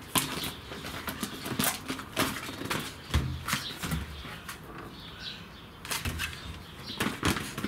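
Long-haired German Shepherd puppy scrabbling after a plastic ball on a tiled floor: an irregular run of sharp clicks and scrapes from claws and the ball on the tiles, with a few dull thumps.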